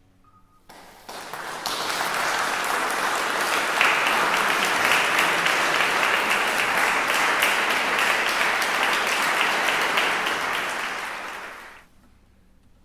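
Audience applauding: it starts about a second in, stays steady, and dies away near the end.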